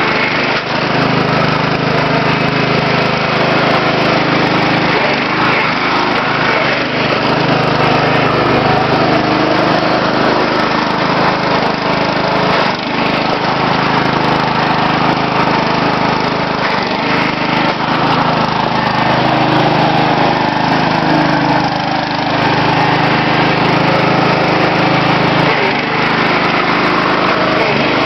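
Riding lawn mower's engine running loudly and steadily throughout.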